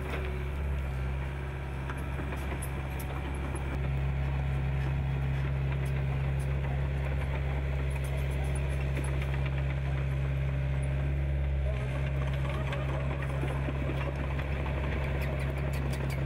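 Excavator's diesel engine running steadily, a low hum that grows louder about four seconds in and shifts again about twelve seconds in, with faint scrapes and clicks over it.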